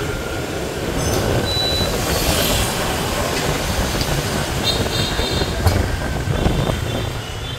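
Motor scooter riding through city street traffic: steady engine and road rumble, with other motorbikes passing.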